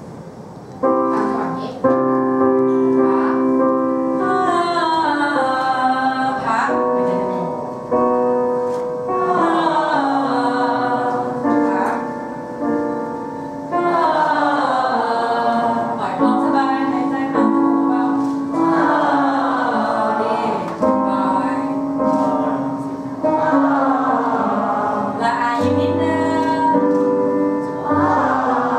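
Piano playing a vocal warm-up pattern of notes and chords, starting anew every two to three seconds, while a group of singers follows on a held open 'ah' vowel.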